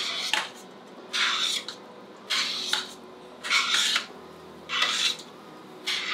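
A spoon scraping around the inside of a stainless steel pot as meat sauce is stirred, with a rasping stroke about once a second, six strokes in all.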